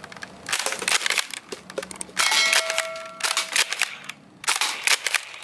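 Nerf Elite 2.0 Commander blaster firing foam darts at a row of targets: several quick, sharp shots in clusters, along with the clatter of hit cans and targets being knocked down.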